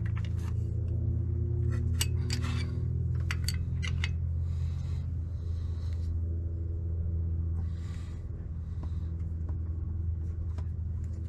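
Metal wrench clinking and scraping against a sending unit as it is tightened into the engine block, a string of sharp clicks, over a steady low hum.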